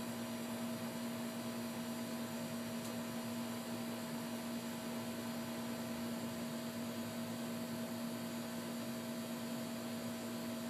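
Steady electrical hum over an even hiss, holding a constant low pitch with a fainter higher tone above it and no change throughout.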